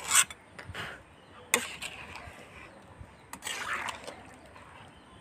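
Metal ladle clinking and scraping against a metal karahi while stirring chicken curry, with a sharp clink at the start and another about a second and a half in.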